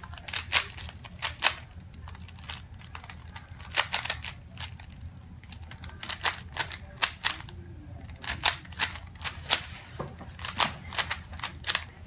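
A plastic 3x3 Rubik's cube being turned quickly by hand while it is solved: sharp, irregular clacks of the layers turning, coming in quick bursts with short pauses between them.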